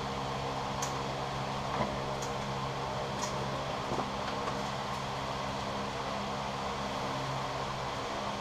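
Steady motor hum, with a few faint light clicks in the first half.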